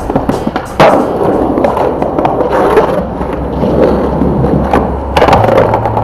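Skateboard wheels rolling on pavement with sharp clacks of the board, the loudest about a second in and again near the end, over background music with a steady bass line.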